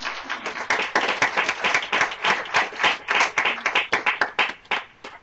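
A small group applauding: many hands clapping quickly and unevenly, thinning out and stopping near the end.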